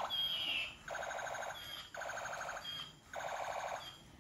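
Battery-powered transparent gear toy gun playing its electronic battle sound through its small speaker. It gives bursts of rapid machine-gun-like stuttering, each opening with a short falling whistle, repeating about once a second.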